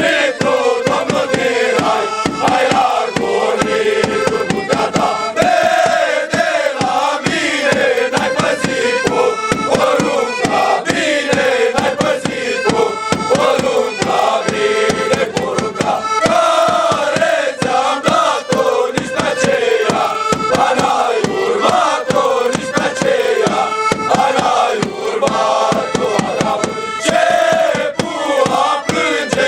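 A group of young men singing a Romanian colindă (Christmas carol) together in a chanted, choral style.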